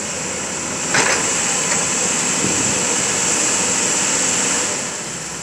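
JCB tracked excavator's diesel engine running under load as its boom and bucket work, with a sharp knock about a second in; it eases off near the end.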